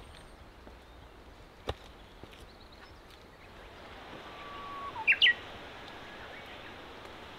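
A songbird singing one held whistled note, then two short, sharp, higher notes about five seconds in, over a steady background hiss.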